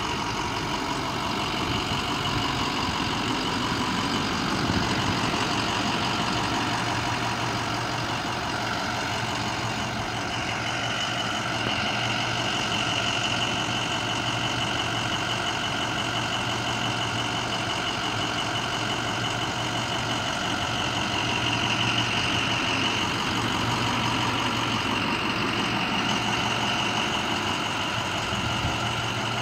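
The 6.0-litre VT365 turbo-diesel V8 of a 2008 International MXT idling steadily.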